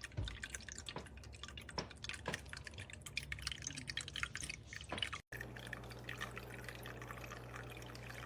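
Tolevoit tabletop water fountain running: water trickling and dripping in many small irregular drops, with a low steady hum underneath. A brief break about five seconds in, after which the water runs as a steadier trickle.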